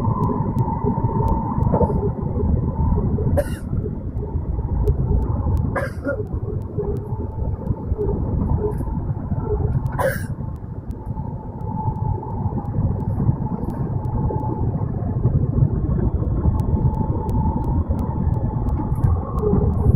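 N700 series Shinkansen running at speed, heard inside the passenger cabin: a steady low rumble with a faint whine that comes and goes. Three short sharp clicks sound about 3 s, 6 s and 10 s in.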